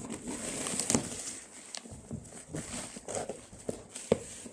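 Rustling and crackling of a parcel's packaging being handled, with a few light knocks and clicks, the sharpest about a second in and near the end.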